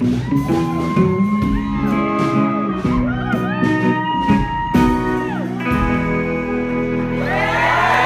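Hollow-body electric guitar and upright double bass playing the last bars of a song. About seven seconds in, a crowd starts cheering and whooping as the song ends.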